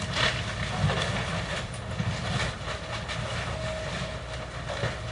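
Demolition excavator's diesel engine running under load, with repeated knocks and clattering of bricks and debris as the machine works the last of the brickwork.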